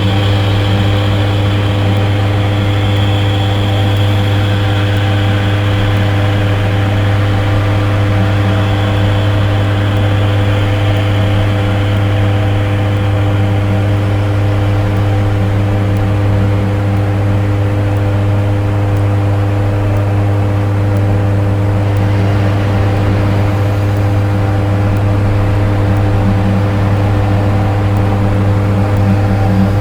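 Dark ambient electronic drone: a loud, unbroken low hum with several sustained higher tones over a layer of noisy hiss. The upper hiss thins out about two-thirds of the way through, and the low drone carries on unchanged.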